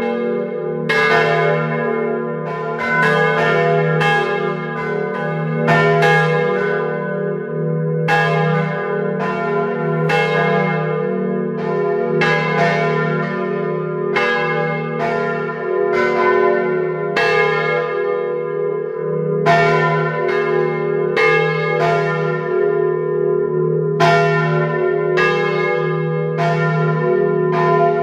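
Five swinging church bells of the Dom Tower (Agnes minor, Kruisklok, Benignus, Adrianus and Jezus Maria Johannes) ringing together in a full peal, heard up close inside the belfry. Clapper strokes land roughly once a second in an irregular, overlapping pattern over a steady low hum from the bells.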